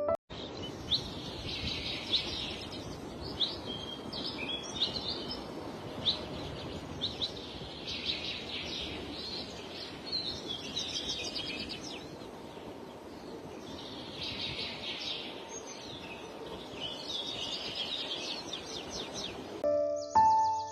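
Wild birds chirping and calling: many short high chirps and quick trills, several birds overlapping, over a steady background hiss of outdoor noise. Music comes in near the end.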